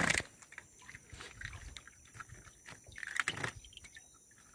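A splash as a hooked peacock bass is lifted clear of the water, then quiet knocks and rustles of the fish being handled in a wooden canoe, with one louder burst about three seconds in.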